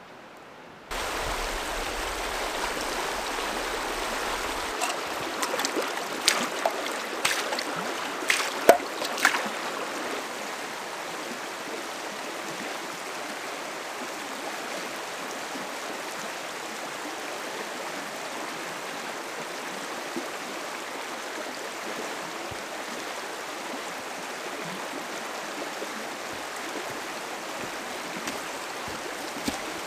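Shallow river running over a stony bed, a steady rushing flow. A cluster of sharp clacks sounds over it between about six and nine seconds in.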